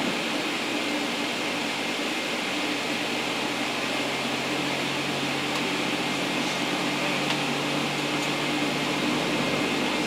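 Steady airy rush with a constant low hum inside a Boeing 777-300ER cabin as the GE90 engine's fan slowly turns over early in its start.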